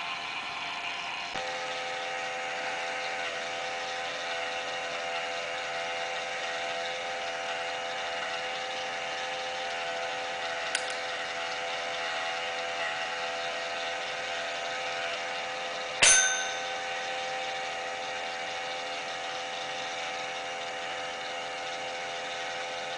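Small electric motor running steadily, turning a train of laser-cut plywood gears with an even whir. About 16 seconds in, a dome bell is struck once with a loud clang that rings out for about a second. There is a faint click a few seconds earlier.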